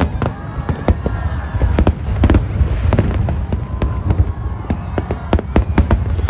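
Aerial fireworks bursting in rapid, irregular succession: many sharp bangs over a constant deep rumble.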